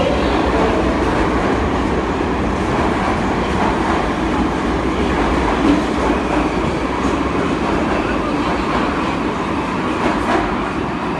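Metro train of the 81-722.1/723.1/724.1 'Yubileyny' type pulling out of an underground station, its cars rolling past the platform with the steady noise of wheels on rail and running gear, easing off slightly near the end.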